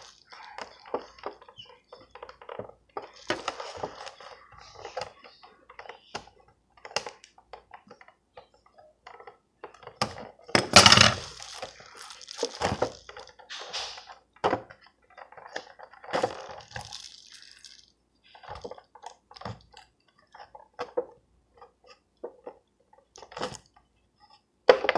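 A toy's blister-card packaging being handled and worked open by hand: irregular crinkling and crunching of stiff plastic and cardboard, with the loudest burst about eleven seconds in.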